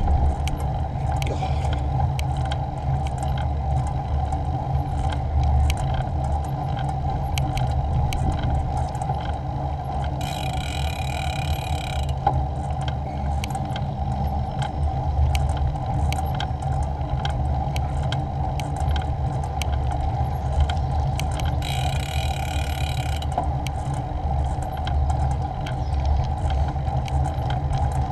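Riding noise from a bicycle on a tarmac road: a steady low rumble of tyres and wind with frequent small clicks and rattles, and two short higher-pitched buzzes, one about ten seconds in and one about twenty-two seconds in.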